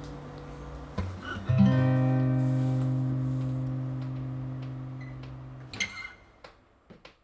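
Acoustic guitar ending a song: a final chord struck about one and a half seconds in rings out and slowly fades. About six seconds in, the strings are damped, followed by a few faint clicks.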